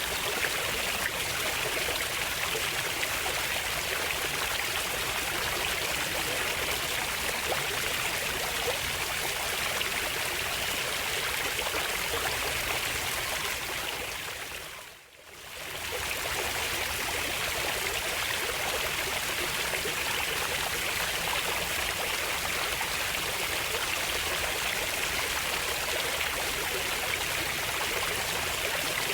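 Steady rush of flowing stream water, which fades down briefly and swells back about halfway through.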